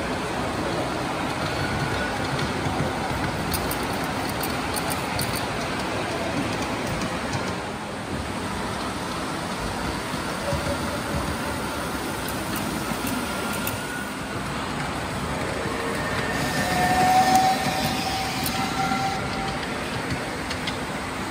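Ride-on model trains rolling over floor-level track: a steady rumble of small wheels on the rails, swelling briefly a little after halfway.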